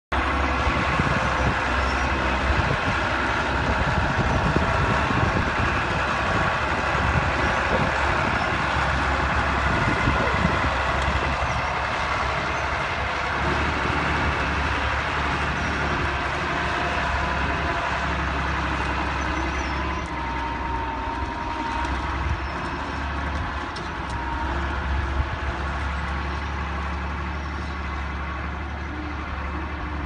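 A 120 hp farm tractor's diesel engine runs steadily under load as it pulls a disc plough through the soil. It grows slowly fainter as the tractor draws away.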